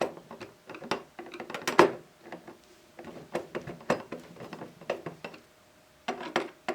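Screws being tightened with a screwdriver into a footlocker's metal handle and hasp, giving irregular metallic clicks and taps, one louder click about two seconds in.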